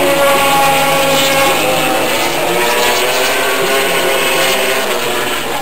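Several 800cc four-stroke MotoGP motorcycle engines running at once on the circuit, their pitches sliding up and down as they pass.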